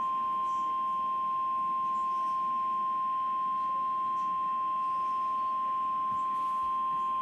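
NOAA Weather Radio 1050 Hz warning alarm tone: one steady, unbroken high beep. It is the attention signal that comes before a broadcast warning, here a flood warning.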